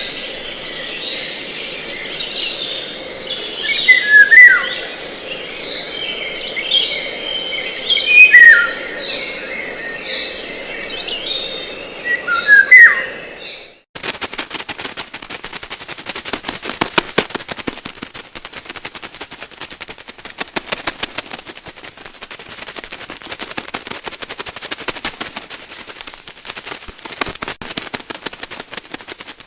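Birds calling: loud, swooping whistled chirps repeated every few seconds over a background chorus of other birds. About halfway through, this cuts off abruptly and gives way to a long, dense run of rapid clicking.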